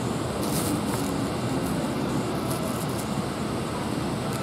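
Steady low rumbling background noise, with a few brief faint hisses.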